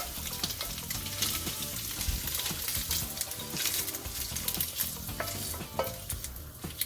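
Pieces of ham frying in hot oil in a pan, a steady sizzle with a utensil stirring and scraping against the pan, and a couple of sharper clinks near the end.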